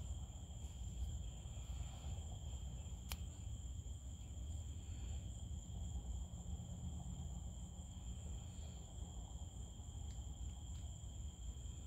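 Crickets trilling steadily in a high, continuous night chorus over a low background rumble, with one sharp click about three seconds in.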